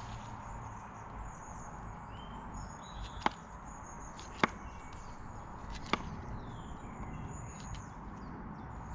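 Three sharp snips of a hand cutting tool cutting through plant stems while taking cuttings, a little over a second apart, over faint bird chirps.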